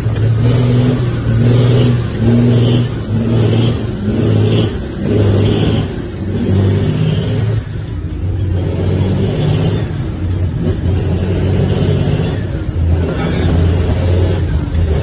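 Heavy diesel truck engine running under load, heard from inside the cab while driving, its note pulsing and changing as the driver works the gear lever.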